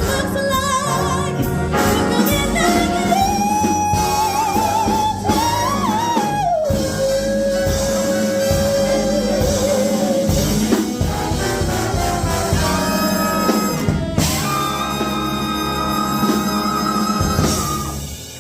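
Big band jazz with a female vocalist bringing a song to its close. The singer holds a long note with vibrato, then the brass and rhythm section play a final sustained chord that cuts off near the end.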